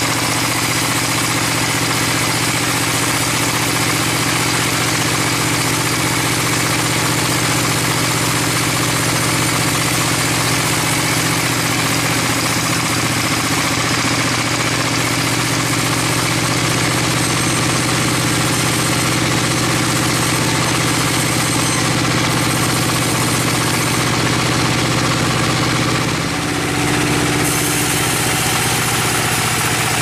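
Band sawmill running with its blade cutting through a log: a steady mechanical drone with a dense hiss of the blade in the wood. About four seconds before the end the sound briefly drops and its pitch shifts.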